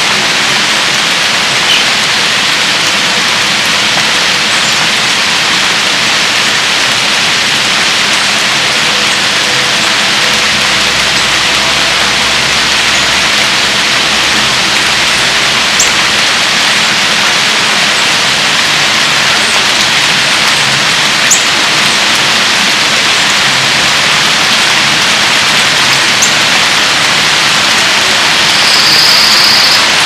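Heavy rain pouring steadily, a dense even hiss, with a few sharp ticks of drops striking something close by.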